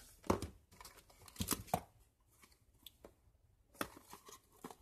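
First-aid supplies in small packets being handled: a few short rustles and clicks of packaging, the strongest about a third of a second in, twice around a second and a half in, and again near the end.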